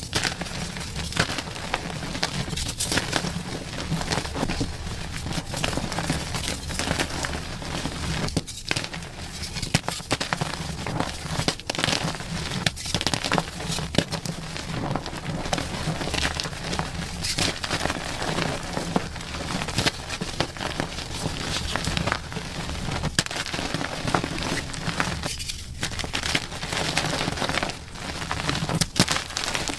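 Chalk being crushed and crumbled, a dense run of crunchy crackles.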